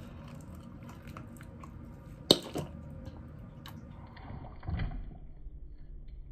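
Wet mouth sounds of biting and sucking at jelly inside a knotted plastic baggie, trying to squeeze it out, with small clicks and plastic rustle and one sharp smack about two seconds in.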